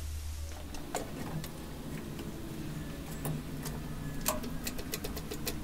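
Light, scattered clicks and ticks of hand work on the engine install, with a quick run of them near the end, over a faint low hum.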